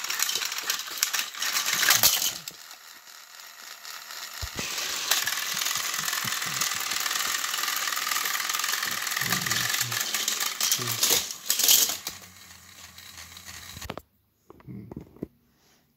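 Battery-powered Thomas & Friends toy engines running on plastic track, their small motors whirring and wheels rattling. The sound stops abruptly near the end.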